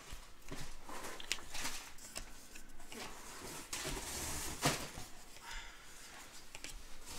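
Trading cards being handled and slid one off another, a run of soft scratchy shuffles and light clicks, with a sharper snap a little past halfway.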